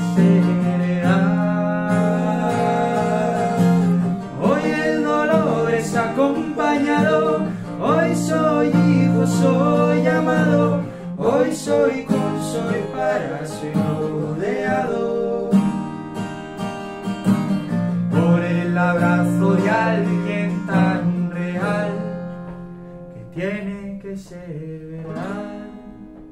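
Acoustic guitar picked and strummed, with a man's voice singing a melody over it. The music dies away over the last few seconds as the song closes.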